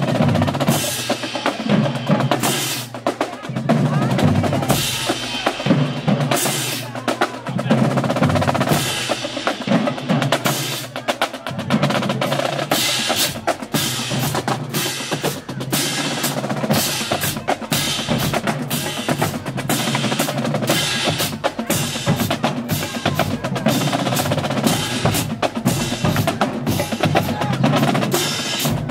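Marching band drumline playing a fast cadence: snare drums with rolls, bass drums and crash cymbals.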